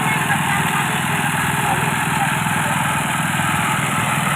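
Engine-driven rice thresher running steadily at an even, loud level, its small engine firing rapidly under a dense mechanical noise.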